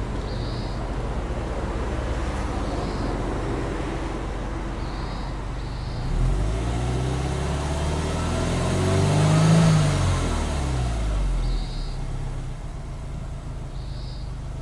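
Subaru Impreza WRX STI's turbocharged boxer flat-four idling steadily, heard at the exhaust tip, then free-revved once about six seconds in: the pitch climbs for about three seconds, peaks, and falls back to idle.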